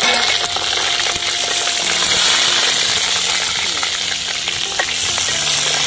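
Small whole brinjals sizzling steadily in hot oil in a steel bowl over a wood fire, freshly dropped into the oil.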